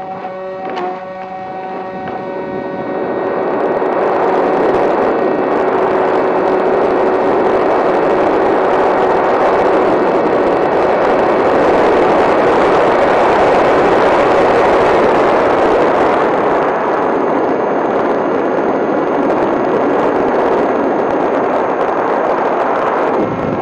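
Model seaplane's motor and propeller heard from a camera on the plane: a steady pitched whine at first, then about 3 s in the throttle comes up and a loud, steady rush of water and wind covers it for the rest of the take-off and flight.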